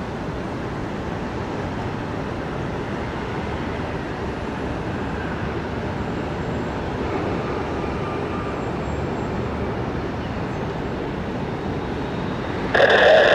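Steady rumble of jet aircraft engines across the airfield, with a faint whistling tone in the middle. Just before the end a much louder engine noise cuts in abruptly.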